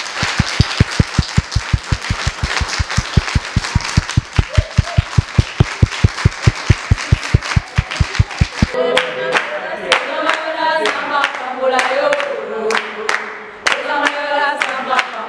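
A group of women applauding, with a quick, even low beat running under the clapping; about nine seconds in, the beat stops and they break into unaccompanied group singing, clapping along.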